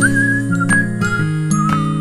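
Background music: a light whistled melody that slides between held notes, over a steady bass line and short tinkling notes.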